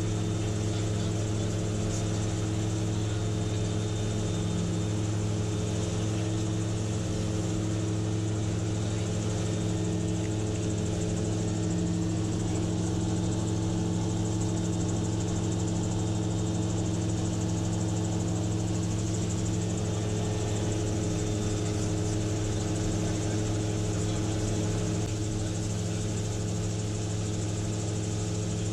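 A gyrocopter's engine and propeller droning steadily in flight, heard from inside the cockpit, over a constant rush of air. The drone eases off slightly near the end.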